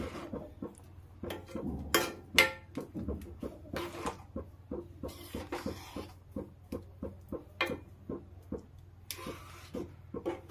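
Spoon stirring a thin curry in a steel kadai, knocking and scraping against the pan two or three times a second, with a low steady hum underneath.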